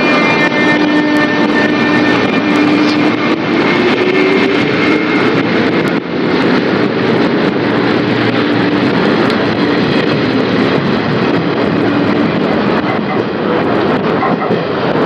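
JR 201 series electric train pulling out and accelerating past: its chopper-controlled traction motors give a steady whine that rises in pitch a few seconds in, then after about six seconds the sound turns to steady wheel-on-rail noise as the cars run past.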